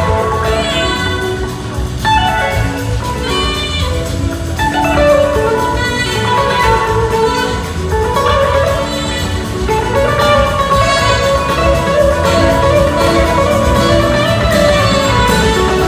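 Live blues-rock band playing at full volume: electric guitar leading with long notes that slide up and down in pitch, over drums, bass and a horn section.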